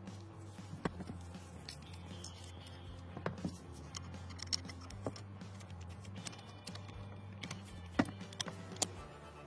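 Small steel rifle parts clicking and clinking against each other as an AK-pattern rifle's pin retainer and trigger group are fitted into the receiver; scattered sharp clicks, the loudest about eight seconds in.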